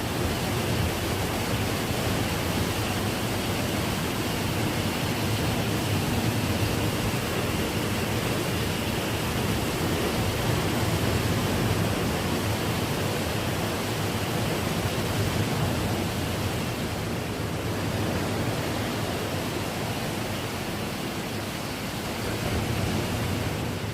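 Steady noise of a nor'easter rainstorm: rain and wind mixed with ocean surf. It is an unbroken hiss over a low rumble.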